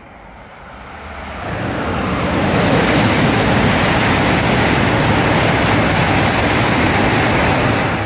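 Coupled E6 Komachi and E5 Hayabusa Shinkansen passing through the station at high speed. It is a rush of air and running noise that swells over about two seconds, stays loud and steady while the train goes by, and begins to fade near the end.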